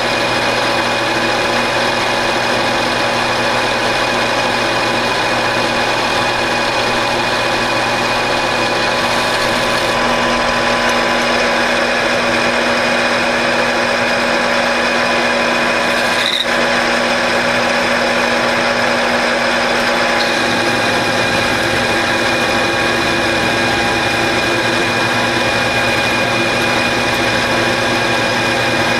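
Grizzly G4003G metal lathe running steadily, its motor and geared headstock humming with several steady tones, while a carbide insert tool takes a turning cut on rusty steel sucker rod. A single brief click a little past halfway.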